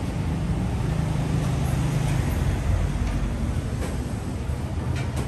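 Road traffic: vehicle engines running close by, a steady low rumble, with a few faint clicks near the end.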